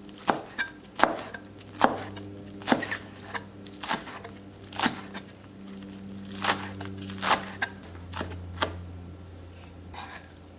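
Chef's knife finely chopping green onions on a plastic cutting board: sharp knocks of the blade striking the board, unhurried and uneven, about one or two a second, thinning out near the end.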